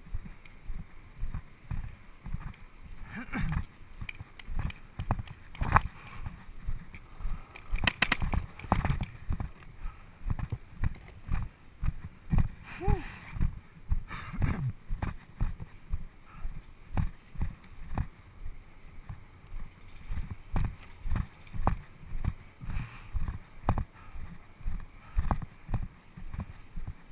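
Footsteps and gear knocks of a paintball player moving on foot, about one to two dull thumps a second, with a few sharper cracks among them.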